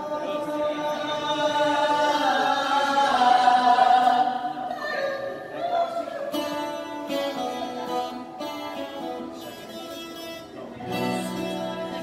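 A group of voices singing held notes in harmony, with acoustic guitar accompaniment; the singing swells to its loudest about three to four seconds in, then eases off.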